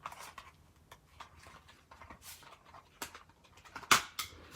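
Sheets of paper rustling and tapping as they are leafed through, with a sharper tap about four seconds in.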